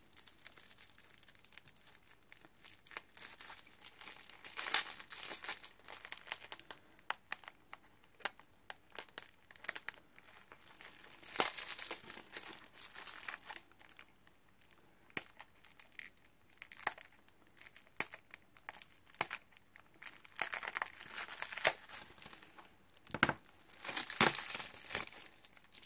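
Bubble wrap and plastic packaging crinkling and rustling in irregular bursts, with many small sharp clicks, as it is snipped with small scissors and pulled off a small packed item.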